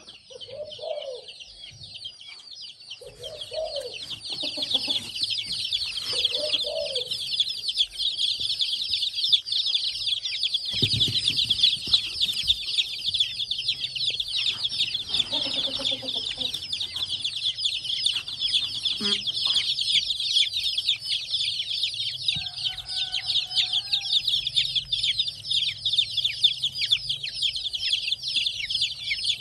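A crowd of baby chicks peeping together, a dense chorus of short, high chirps that swells over the first few seconds and then keeps on without a break. A few short lower calls come through in the first seven seconds.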